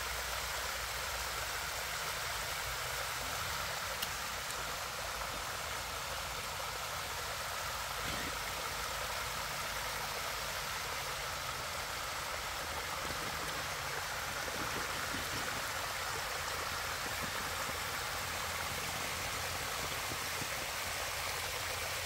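Small waterfall rushing steadily over rock, with one sharp click about four seconds in.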